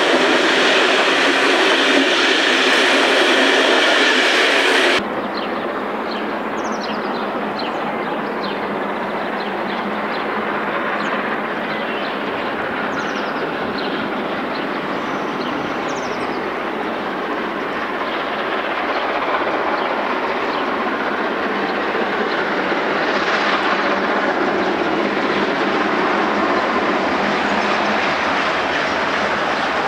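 A steam-hauled passenger train's coaches rolling past with a clickety-clack of wheels, which cuts off suddenly about five seconds in. Then a steam locomotive approaches under steam, growing slowly louder.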